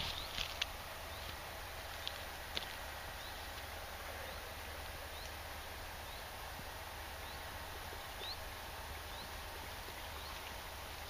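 Woodland ambience: a small bird repeats short, high, rising chirps every half second or so over a steady hiss. A few soft clicks come in the first three seconds.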